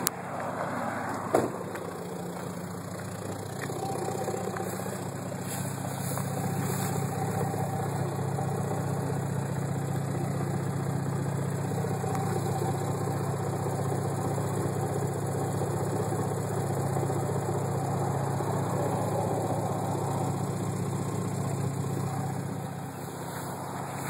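Subaru SVX's flat-six engine running steadily, growing louder from about four seconds in and easing off near the end, with a faint thin whine above it. A single sharp click about a second and a half in.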